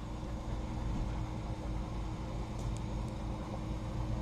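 Off-road 4x4's engine running steadily, a low even drone.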